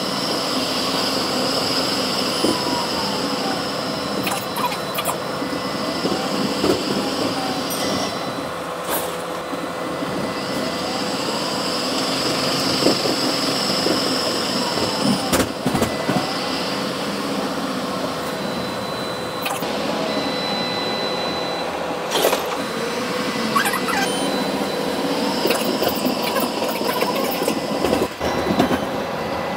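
Ride noise heard from inside a moving Melbourne tram: a steady rumble of the wheels on the rails with a whine that rises and falls several times, and a few sharp clicks.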